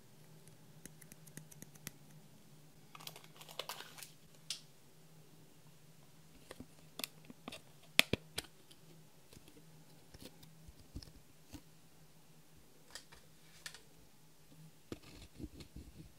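Light clicks and taps of a plastic eyeshadow palette case being handled, with one sharp snap about halfway through as the case is opened. Near the end come a run of small scratching, crumbling sounds as a pointed tool digs the pressed eyeshadow out of its pan.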